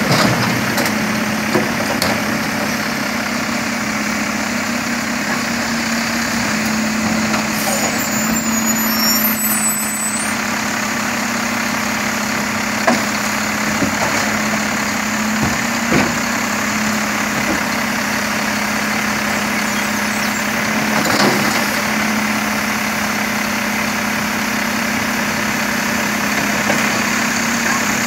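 Mack LEU garbage truck idling, with a steady hum that grows louder for the first ten seconds or so while the Labrie Automizer side-loader arm lifts, dumps and lowers a cart. A few sharp knocks sound through it, the loudest about thirteen and sixteen seconds in.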